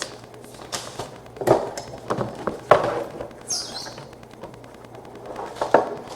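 Handling noise as the owner's manual and packaging are moved about: a series of short rustles, scrapes and light knocks, with a brief higher paper-like rustle about halfway through.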